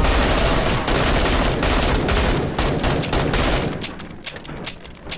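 Sustained automatic fire from an AK-pattern assault rifle, a dense unbroken burst of shots. Nearly four seconds in it drops off to quieter, scattered single sharp cracks.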